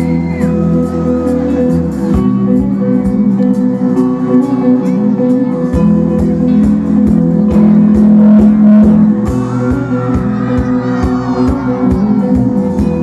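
A rock band playing live on stage, with electric and acoustic guitars, keyboard and drums. A steady drum beat comes in about two seconds in under the sustained guitar and keyboard chords.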